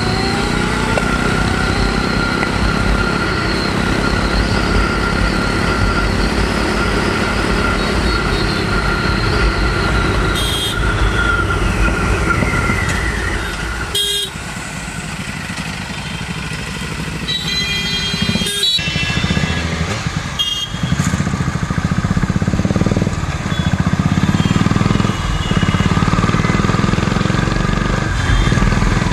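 A motorcycle rides through city traffic, its engine running steadily, with a whine that falls in pitch about twelve seconds in as it slows. A vehicle horn honks briefly around eighteen seconds in, and there are a few sharp clicks.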